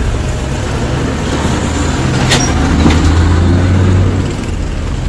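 Road traffic passing close: a flatbed truck's diesel engine running as it goes by, then a car, with the engine hum loudest about three to four seconds in and fading after. A single sharp click sounds a little over two seconds in.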